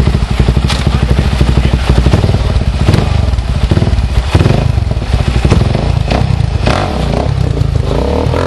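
Dirt bike engine running at low revs as the bike is worked over boulders, with several sharp knocks and scrapes of the bike against rock.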